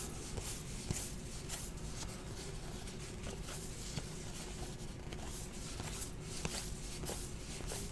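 Baseball trading cards being handled and flipped through by hand: a scattering of soft clicks and slides over a faint steady hum.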